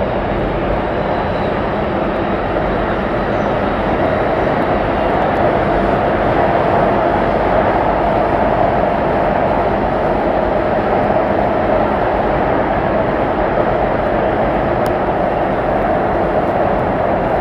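Running noise inside a carriage of an Alstom Metropolis C751C metro train in motion between stations: a steady rumble and rush that grows slightly louder about four seconds in.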